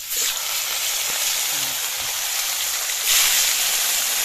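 Pieces of spice-coated fish dropped into hot oil in an aluminium kadai, frying with a loud, steady sizzle that starts suddenly as the first piece goes in and grows a little louder about three seconds in.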